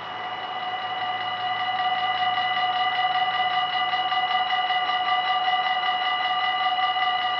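Dutch level-crossing warning bells ringing in a rapid, even, continuous pattern, growing louder over the first second or two, as the red lights flash and the half-barriers lower to warn that a train is approaching.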